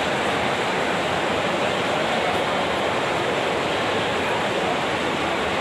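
Steady rushing wash of water splashing from several swimmers' front-crawl strokes and kicks, in an indoor pool hall.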